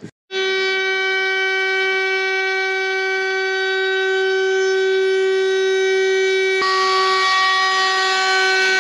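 DeWalt 20V cordless compact router running at a steady high-pitched whine as its bit cuts into a marine plywood panel. There is a sharp click about two thirds of the way through, after which the cutting hiss grows louder.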